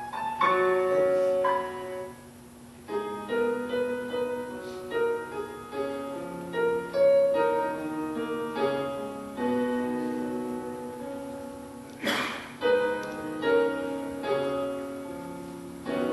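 Piano playing a slow instrumental introduction to a worship song, a series of held chords and melody notes, with a brief noise about twelve seconds in.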